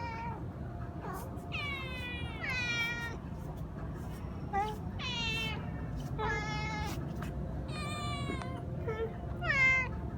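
Hungry cats meowing for food: about six drawn-out meows, each falling in pitch, with a few short chirps in between.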